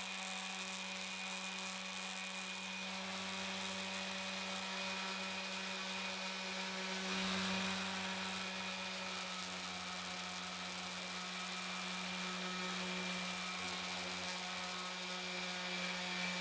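Small electric power tool running steadily at one constant speed, a little louder about seven seconds in.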